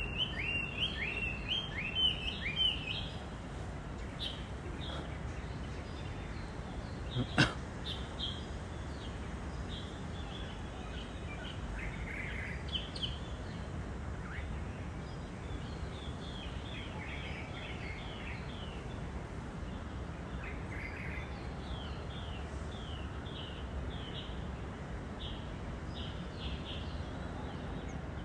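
Birds chirping over a steady low outdoor background noise: a quick run of rising chirps in the first few seconds, then scattered short repeated notes. A single sharp click comes about seven seconds in.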